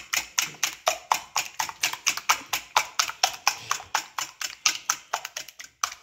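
Wire balloon whisk beating a runny waffle-batter mixture in a glass dish, its wires clicking against the glass in a fast, even rhythm of about six strokes a second that stops suddenly at the end.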